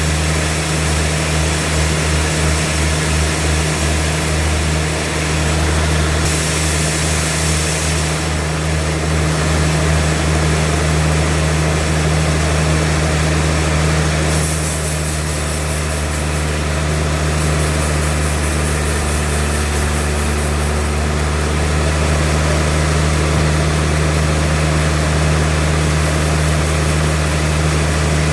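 Sawmill machine running steadily, a deep engine hum with a constant hiss over it; a brighter, higher hiss comes in briefly about six seconds in and again for several seconds midway.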